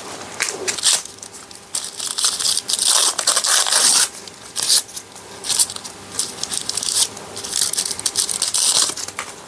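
Cadbury Dairy Milk chocolate bar wrapper crinkling and tearing as it is opened, in several bursts of rustling, the longest between about two and four seconds in.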